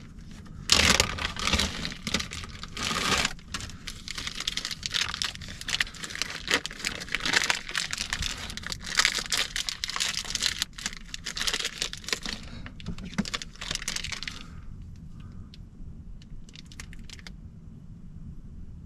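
A block of cheese being cut: rapid rasping, scraping strokes that run for about fourteen seconds and then stop, leaving only a few faint ticks.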